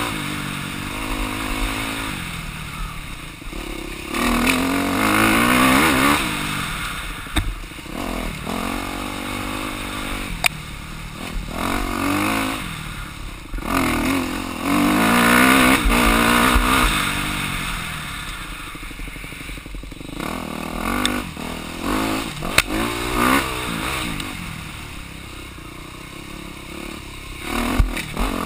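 Dirt bike engine under way on a rough trail, revving up and easing off again and again, its pitch climbing with each throttle surge and dropping as it backs off, with sharp knocks now and then.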